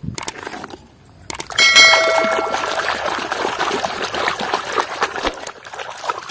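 Light clatter of plastic toys, then a ringing ding about one and a half seconds in that fades over a second or so, over muddy, foamy water sloshing and splashing in a tub as a toy truck is scrubbed by hand.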